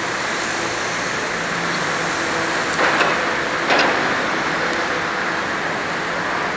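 Old FMC Link-Belt crawler crane's diesel engine running steadily. Two short, sharp knocks stand out about three seconds and just under four seconds in.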